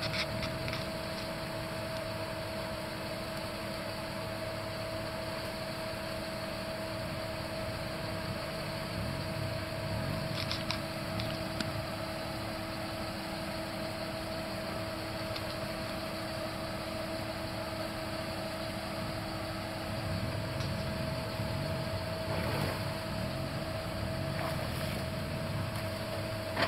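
Off-road 4x4 engine idling steadily, with a constant hum over a low rumble.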